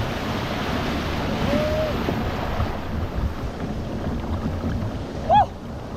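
Surf breaking and rushing around a small boat, with wind buffeting the microphone. About five seconds in, a short, loud high-pitched call cuts through.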